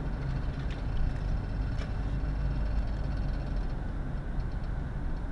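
Steady engine and road rumble inside a moving car's cabin while cruising.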